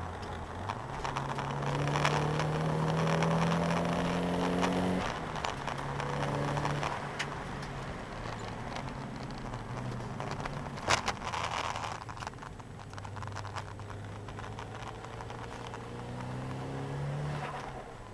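Nissan 200SX engine heard from inside the cabin under hard driving. The revs climb through a gear, drop with an upshift about five seconds in, climb again briefly, then fall away and hold lower for a while. They rise once more near the end. A couple of sharp knocks come about eleven seconds in, over steady road and tyre noise.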